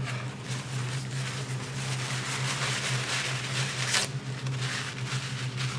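Paper towel pulled and torn from a roll and handled, a papery rustling with a sharper rustle about four seconds in, over a steady low hum.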